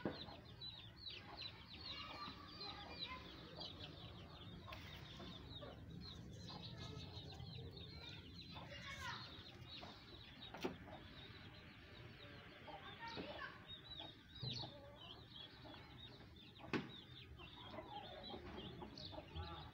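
Aseel chickens clucking softly, among many short high chirps and a few sharp taps.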